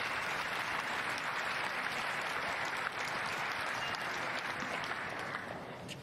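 Arena crowd applauding steadily between points, dying away near the end.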